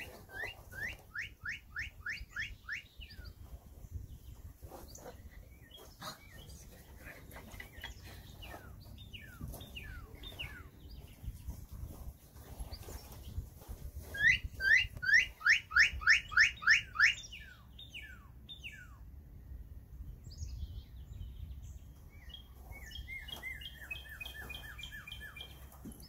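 Songbirds singing: a phrase of quick rising whistled notes, about four a second, comes twice and is loudest the second time, with scattered chirps and a shorter twittering phrase near the end. The naturalist identifies the song as an American goldfinch's.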